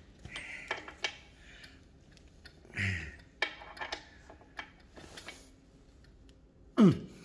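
Scattered light metal clicks and clinks as an Allen key works a grub screw on a facing tool clamped to the end of a Ford F350 axle housing. Near the end comes a brief loud sound that drops quickly in pitch.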